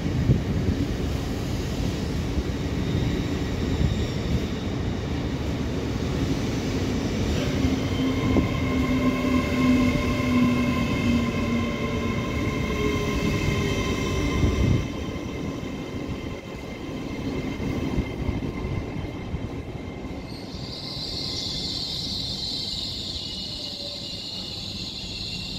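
LNER Azuma electric train running along the platform: a heavy rumble of wheels on rail with steady whining tones from its traction equipment. The rumble falls away about halfway through as the rear passes. Near the end a high hiss or squeal rises as another Azuma approaches.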